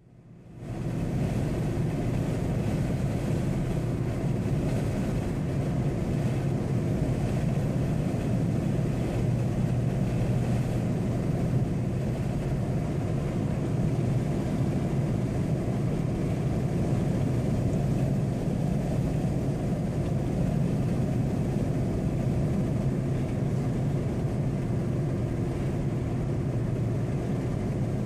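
Steady low drone of a car's engine and tyres heard inside the cabin while driving on a highway. It fades in during the first second, then holds even.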